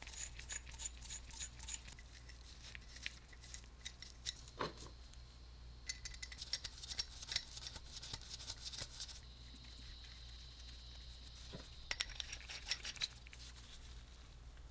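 Brass flare fittings and a black iron pipe tee being handled and screwed together by gloved hands: a run of faint small metallic clicks and ticks.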